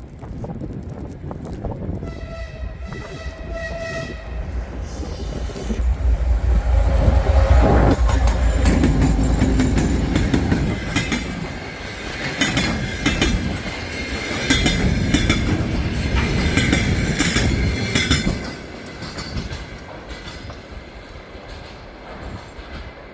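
2M62 twin-section diesel locomotive sounding a horn blast about two seconds in, then passing close with a heavy low diesel rumble. Its wheels then clatter over the rail joints before the sound dies down near the end.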